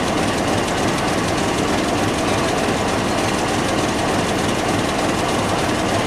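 Bangladesh Railway diesel locomotive running steadily beside the platform of a standing passenger train, mixed with the chatter of a crowd of passengers.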